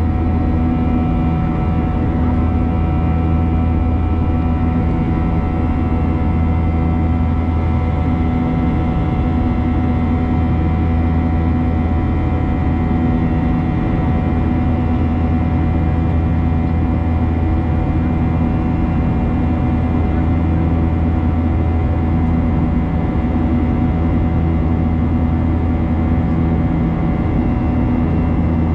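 Steady cabin drone of a Boeing 737-800 heard from a seat in the front of the cabin: a loud low hum from its CFM56 engines and the airflow, with several steady whining tones above it and a slow beat in the lower hum.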